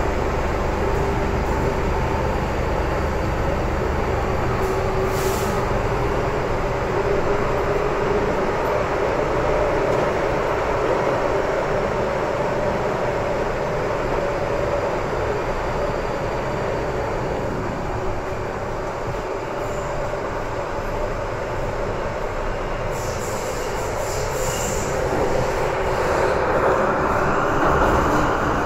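MTR M-train electric multiple unit running through a tunnel, heard from inside the car: a steady rumble of wheels on rail and running gear with a faint hum. The noise eases a little about two-thirds of the way through, then builds again near the end.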